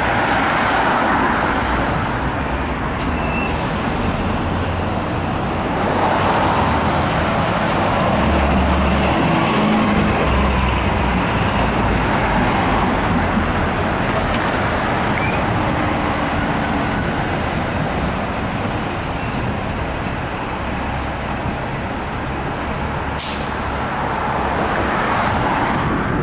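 Street traffic: a city transit bus and cars passing close by, with engine noise and tyres on the road, the bus engine's low hum strongest partway through. A single sharp click sounds near the end.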